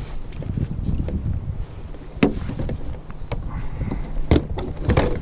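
Wind rumbling on the microphone aboard a fishing kayak at sea, with a few sharp knocks: one about two seconds in and two more after four seconds.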